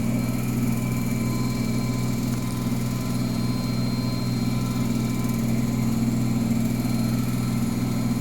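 Noisy washing machine running with a steady low drone that holds one pitch throughout.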